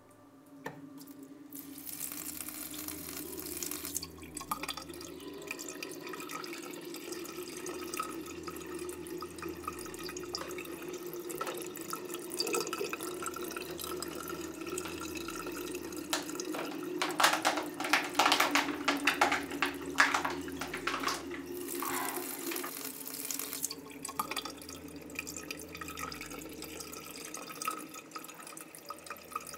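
Bathroom basin tap running into the sink, water splashing steadily, with a stretch of heavier, uneven splashing a little past the middle.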